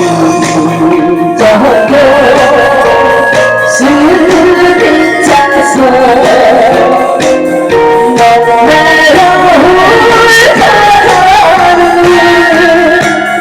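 A woman singing a Korean song live over an instrumental backing track, the voice coming in about a second in after the accompaniment plays alone.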